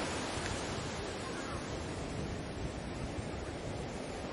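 Sea waves washing in a steady, even rush, with wind.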